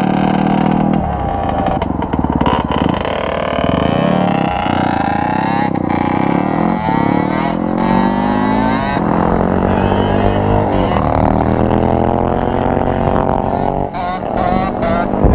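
Dirt bike engines revving hard, the pitch climbing and dropping back again and again as the riders work the throttle and shift gears.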